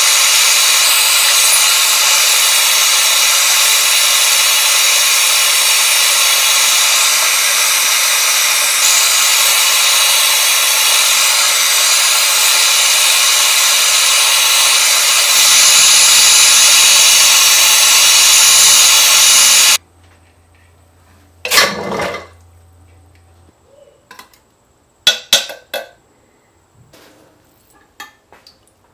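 Steady hiss of a jeweller's gas torch flame heating a silver spoon, growing louder a little past halfway, then cutting off suddenly. After that come a few sharp clinks of the spoon against a glass dish.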